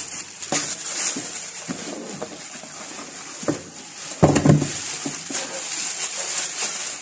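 Plastic wrapping crinkling and a cardboard box scraping as a boxed air pump is lifted out of its packaging, with a louder dull bump a little over four seconds in.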